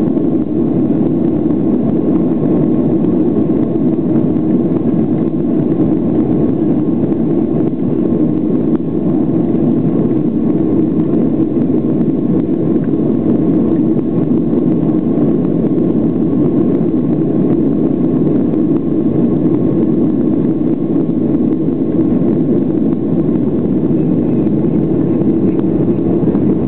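Boeing 737-700's CFM56-7B turbofan engines at takeoff thrust heard inside the cabin during the takeoff roll: a loud, steady, low noise that does not let up as the jet accelerates down the runway and lifts off.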